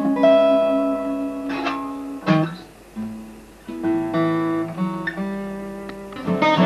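Acoustic guitar strummed and picked, a handful of chords struck and left to ring, with the chord changing every second or so: an instrumental passage between sung lines.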